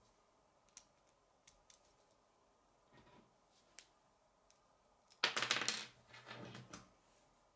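Small plastic K'nex pieces being handled, giving scattered light clicks, then about five seconds in a loud rattling clatter of plastic pieces lasting about a second and a half.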